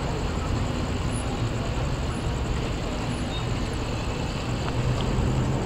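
Steady low rumble of road traffic and engines running.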